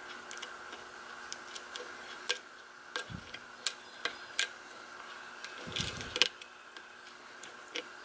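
Small, irregular metallic clicks of a thin Peterson Gem hook pick lifting the pin stacks in a brass padlock's seven-pin cylinder while a tension wrench holds turning pressure on the core. A few clicks stand out louder, and there are two soft handling bumps around the middle, over a faint steady hum.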